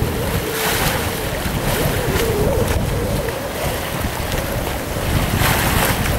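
Sailing yacht's hull rushing through choppy waves, with wind buffeting the microphone in a steady low rumble. Louder washes of spray about half a second in and again near the end, and a faint wavering hum underneath.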